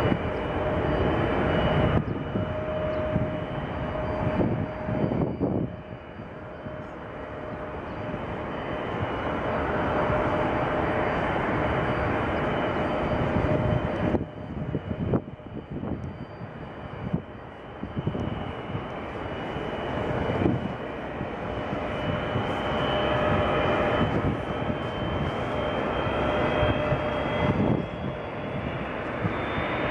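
Jet airliner engines running at the de-icing pad: a steady whine over a broad rushing noise that swells and drops off abruptly several times.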